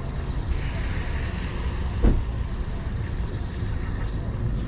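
A steady low outdoor rumble with light handling noise as a sneaker is turned over in the hands. A single soft knock comes about two seconds in.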